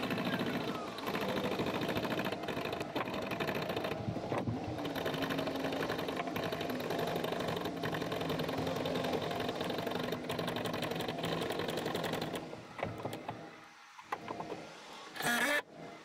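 A handheld power tool runs steadily with a fast rattle for about twelve seconds, then stops. A few sharp knocks follow just before the end.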